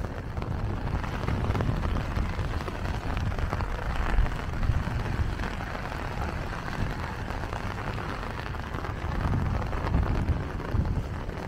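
Steady heavy rain falling on wet pavement and pattering on an open umbrella overhead, with a steady low rumble underneath.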